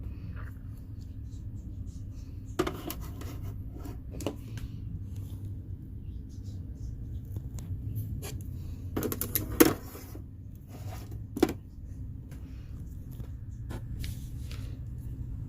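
Skincare items and face mask packets being handled and set into a mini fridge: a few sharp knocks and clicks with light rustling, the loudest cluster a little past halfway, over a steady low hum.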